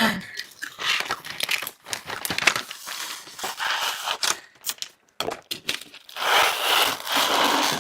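Plastic snack packaging crinkling and being torn open, irregular crackles with a longer, louder rustle about six seconds in.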